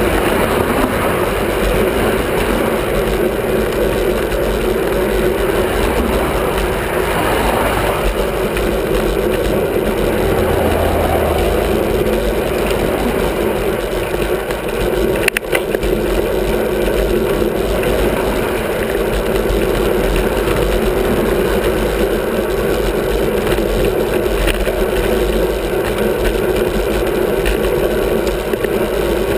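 Steady rush of wind and road noise picked up by a bicycle-mounted camera while riding, with cars passing in the lanes alongside. A single sharp click about halfway through.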